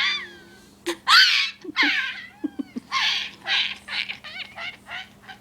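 A young girl laughing: high-pitched, squealing giggles in short bursts with gaps between, turning into a quick run of short laughs from about three seconds in.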